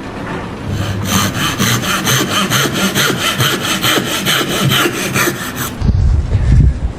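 Wood being sawn in fast, even strokes, about five a second, for several seconds. The sawing then stops and is followed by a loud, low thud and rumble.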